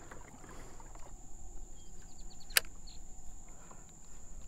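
Low, steady noise of a fishing kayak under way on calm water. A quick run of faint ticks leads into one sharp click about two and a half seconds in.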